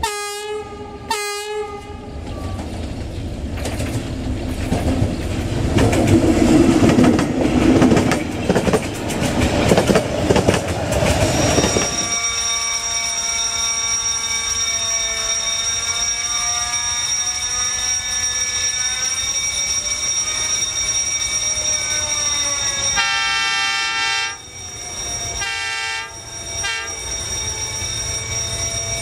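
Diesel locomotive horns: two short blasts, then a loud rumble and clatter of a train on the rails. A long, held multi-tone horn from a D19E diesel locomotive follows, breaking into a few short toots a few seconds before the end and then holding again.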